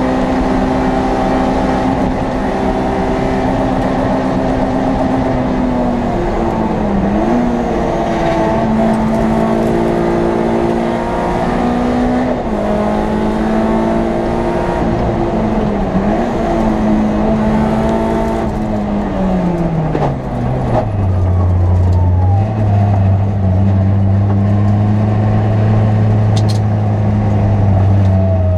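Onboard sound of a Citroën Saxo VTS N2 rally car's 1.6-litre 16-valve four-cylinder engine at high revs. The revs drop briefly at each gear change, about three times. Late on the revs fall away as the car slows, and the engine then runs steadily at much lower revs.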